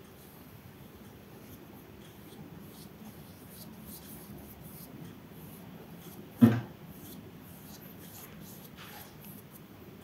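Faint scratching of a damp paintbrush stroking over gouache-painted paper, blending the edges between colours. One brief louder sound comes about six and a half seconds in.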